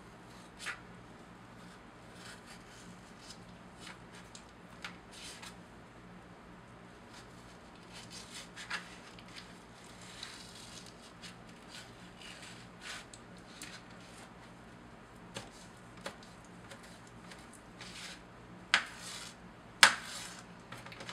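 Kitchen knife slicing and scraping through a fleshy aloe vera leaf on a plastic cutting board, filleting the gel from the skin: scattered soft cuts and clicks. Two sharper knocks of the blade on the board come near the end.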